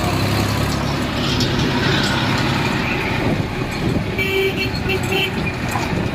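A tractor's diesel engine running steadily at low speed, heard from the trailer it is towing. About four seconds in, a horn gives a few short beeps.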